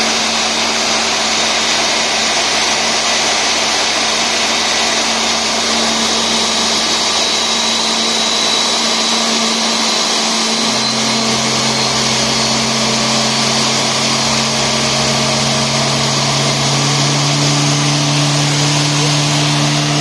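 Airbus A320 turbofan engines running on the ground: a loud, steady din with a faint high whine drifting slowly upward. A new low hum comes in about halfway through, with another joining near the end.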